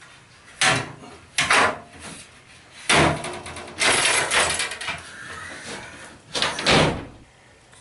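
Metal folding attic ladder being folded up and pushed into the ceiling hatch: a run of clanks, rattles and knocks as its sections fold. The last bang comes near the end as the hatch door swings shut.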